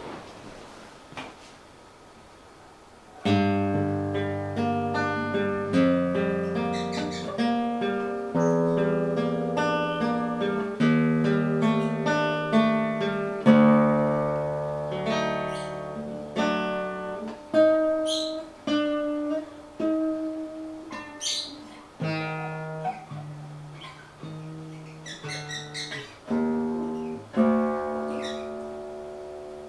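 Acoustic guitar playing a blues tune, single plucked notes and chords, starting about three seconds in after a quiet lead-in.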